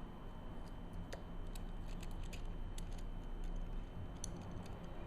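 Small, irregular clicks and taps of a Minolta AF 50mm f/2.8 macro lens's metal and plastic parts being handled and pushed together during reassembly, over a low steady hum.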